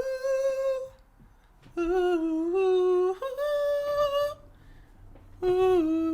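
A voice humming a slow melody in long held notes that step upward in pitch, in three phrases with short pauses between them.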